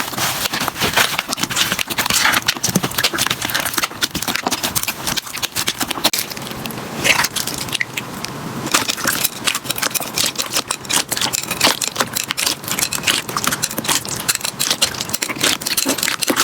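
Slime being squeezed and pressed by hand, giving a dense run of crackles and small pops.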